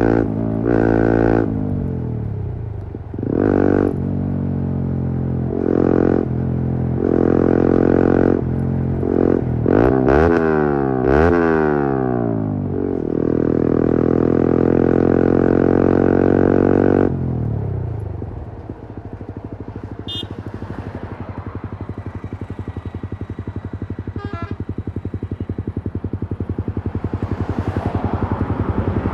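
Yamaha R15 V3's single-cylinder engine through an Akrapovič replica exhaust with a custom bend pipe, ridden: short rev blips and quick rising and falling sweeps, then held high for a few seconds. A little past halfway it drops suddenly to a low, pulsing run that slowly builds again near the end.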